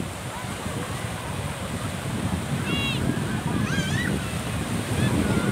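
Small surf breaking and washing up a sandy beach, with wind buffeting the microphone. Children's short high calls come in about three and four seconds in.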